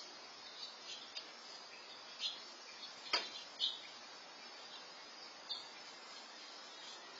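Faint outdoor ambience heard through a Nest security camera's microphone: a steady hiss with a handful of short, high bird chirps, the sharpest about three seconds in.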